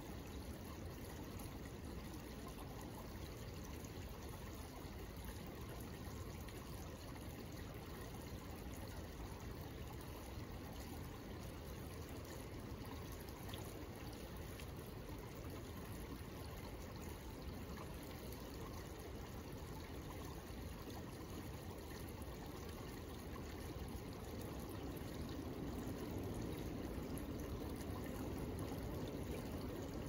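Shallow woodland creek flowing steadily: an even rush of water, growing a little louder near the end.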